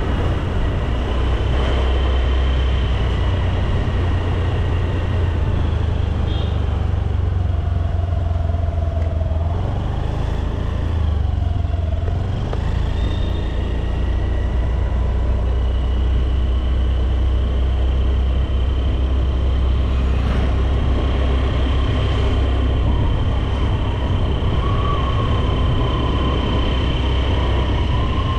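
Honda Activa 125 scooter's single-cylinder engine running while riding, with steady wind and road rumble. About nine seconds in, the engine note falls, as when easing off, and then climbs back up.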